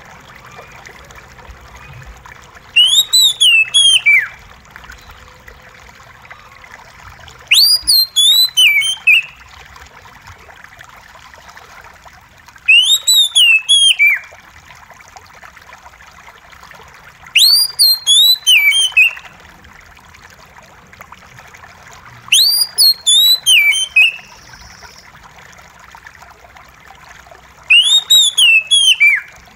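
Oriental magpie-robin singing loud whistled phrases of rising and falling notes, the same short phrase six times, about every five seconds. A steady trickle of running water goes on underneath.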